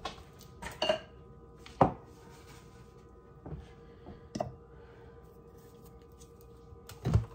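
About six separate knocks and clunks of cans and utensils being handled and set down on a kitchen countertop, the loudest about two seconds in, over a faint steady hum.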